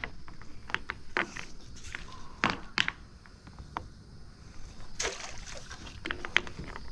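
Irregular light knocks and clicks, a few sharper than the rest, as a ring crab net and its line are handled and lowered into the water.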